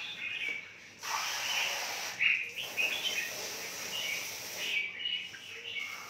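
Many caged birds chirping over the steady hiss of water running from a garden hose into a cage's water dish, which gets louder about a second in.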